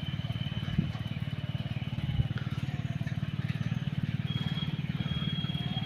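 Small motorcycle engine running steadily with a fast, even low putter, and two sharp knocks, one just under a second in and one about two seconds in.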